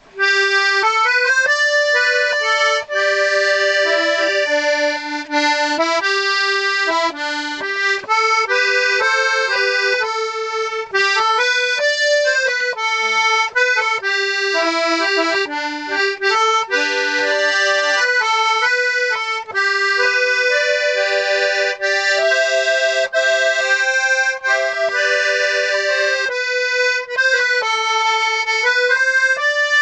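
Royal Standard 32-bass piano accordion played on the treble side alone: a continuous tune of single notes with no bass, its reeds newly rewaxed. The reeds have a tremolo sound.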